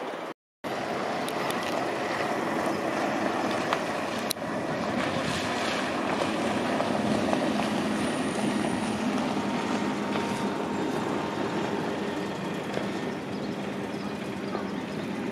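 A boat engine running steadily, a low hum over a wash of water and wind noise. The sound drops out briefly just after the start.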